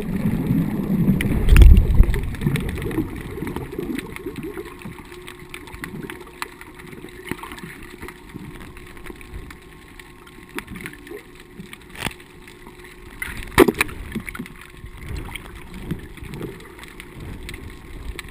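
Underwater sound heard through a submerged camera housing: a loud, muffled low rumble of water turbulence at the start, settling into a low murmur with scattered clicks and knocks. The loudest knock comes about three-quarters of the way through.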